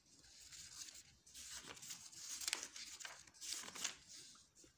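Pages of a thick textbook being turned: several soft, separate paper rustles and flaps.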